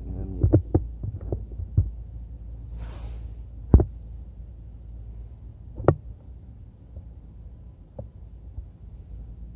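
A steady low hum with a scatter of dull knocks and taps in the first two seconds, then two sharp single knocks about four and six seconds in, the first of them the loudest.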